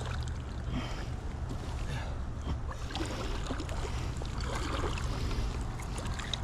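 Steady rushing of river current, with a constant low rumble underneath.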